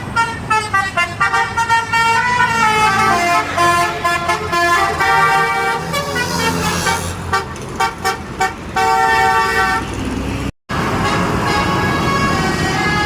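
Bus 'telolet basuri' multi-note musical air horn playing a tune: quick short notes in steps, a run of notes sliding downward, then longer held notes. Near the end the sound cuts out briefly and gives way to a noisier stretch of vehicle sound with fainter horn tones.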